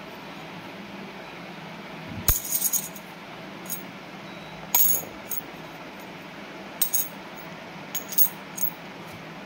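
Coins and metal clinking together in a hand: about a dozen short metallic clicks in small clusters, the first and loudest about two seconds in, over a steady low hum.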